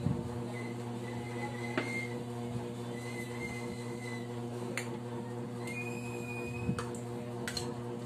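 A steady low electrical hum, with a few light clicks as a white plastic ladle knocks against the steel pot and the metal flan moulds while custard mixture is ladled. Faint, thin, high whistling tones come and go in the background.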